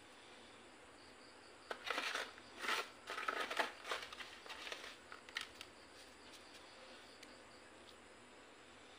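Hands rustling and crinkling while working the moss and soil around the bonsai's base, in a burst of a few seconds that ends with a few light clicks.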